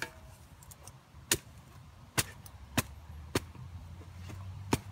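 A steel shovel blade stabbing into stony ground: five sharp strikes spread unevenly over the few seconds.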